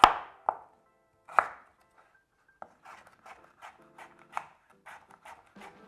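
Kitchen knife dicing cucumber: three sharp, loud cuts in the first second and a half, then after a short pause a quicker run of lighter cuts.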